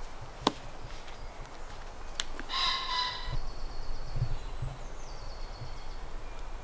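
A single sharp click, then woodland birds calling: a harsh call of under a second about two and a half seconds in, followed by thin, high trilling calls of a songbird.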